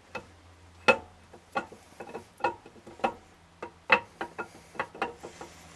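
Irregular metal clicks and light knocks as a new camshaft is slid and turned by hand into the cam bore of a GM Gen IV LS3 V8 engine block. The two loudest knocks come about a second and about four seconds in.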